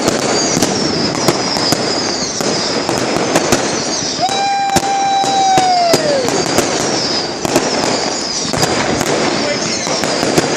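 Fireworks going off in a rapid string of sharp pops and crackles. About four seconds in, a steady whistle sounds for about two seconds, then drops in pitch as it fades.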